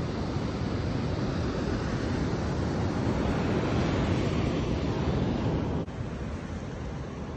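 Steady rush of wind on the microphone and surf washing at the shoreline, with no distinct events; it steps down abruptly to a slightly quieter rush about six seconds in.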